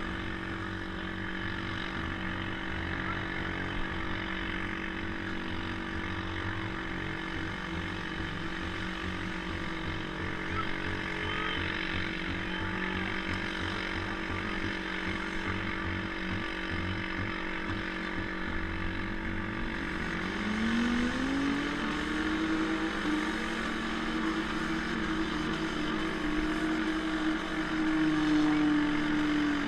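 Demolition derby car engine running at a lumpy idle, then revving up steeply about two-thirds of the way in and held at high revs to the end, with other engines running.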